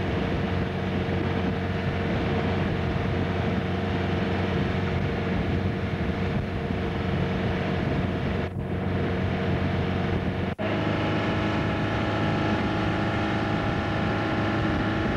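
Speedboat engine running steadily at speed while towing a water-skier, heard from aboard the boat. The sound drops out briefly twice, about eight and a half and ten and a half seconds in.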